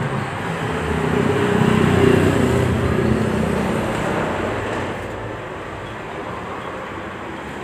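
Road traffic: a steady vehicle rumble that swells to its loudest about two seconds in and eases off after about five seconds.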